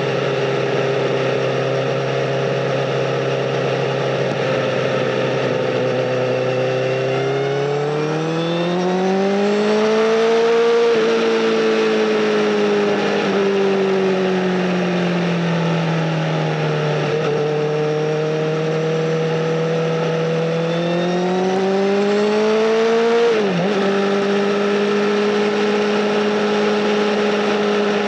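Honda Fireblade SC59's 1000cc inline-four running through a Bodis aftermarket exhaust while being ridden: it holds a steady note, climbs smoothly in pitch under throttle about a quarter of the way in, eases back down, then climbs again. A brief sharp dip comes just after the second rise before it settles to a steady higher note.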